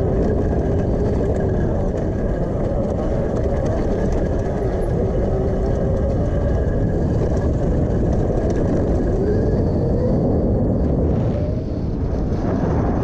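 A Honda CRF150R dirt bike converted to a 72 V electric drive, its motor whining as it rides, the whine rising and falling in pitch with the speed. A heavy low rumble runs under it, with a short dip in loudness near the end.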